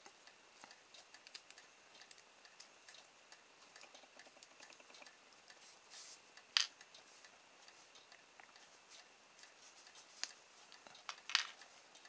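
Faint small clicks and ticks as a screwdriver works the screw of a plastic RC servo horn and the horn is handled and pulled off, with a sharper click about halfway through and a few more near the end.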